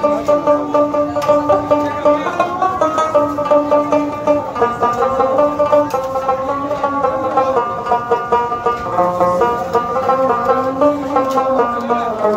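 Background music led by a plucked string instrument, playing a steady, continuous melody.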